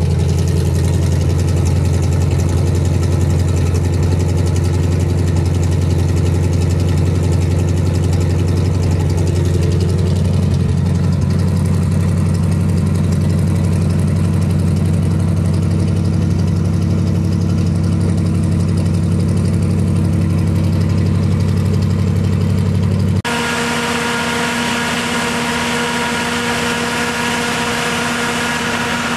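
Big-block V8 of a 1980 dually pickup idling steadily just after a cold start in freezing weather, heard from the exhaust at first. About three-quarters of the way through, the sound switches to under the hood: the deep exhaust rumble drops away and a lighter running sound with steady whining tones takes over.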